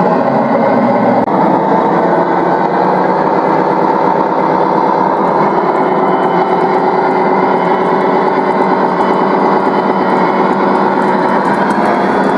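Gauge 1 model freight train of tank and silo wagons rolling along the track, a steady mechanical hum with wheel noise and faint clicking near the end.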